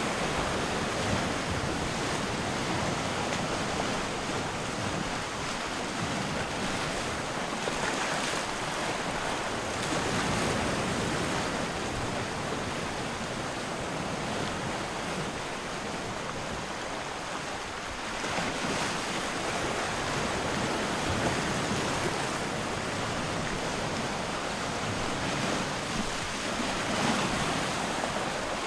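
Steady rushing noise that swells and eases every few seconds, with no clear tone or rhythm.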